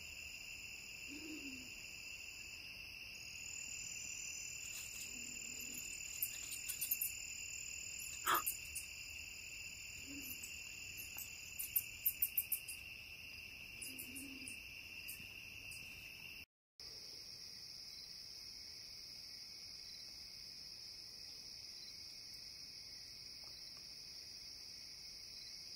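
Steady night chorus of crickets, an even high trill that runs on throughout apart from a brief dropout about two-thirds through, with scattered faint clicks in the first half.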